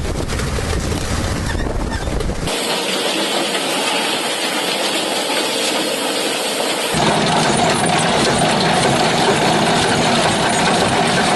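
Heavy farm machinery running, a dense mechanical noise that changes abruptly twice: it loses its deep low rumble about two and a half seconds in, and the rumble returns about seven seconds in.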